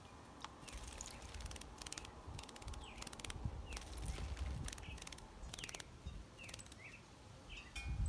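A bananaquit splashing as it bathes in a shallow metal bird-bath dish, a run of quick water flicks and spatters. Short falling bird chirps come through several times over the splashing.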